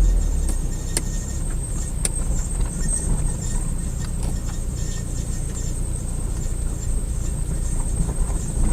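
A car on the move: a steady low rumble of road and running noise, with a few sharp clicks or knocks, two of them about one and two seconds in. This is the abnormal noise being traced to the left rear of the car.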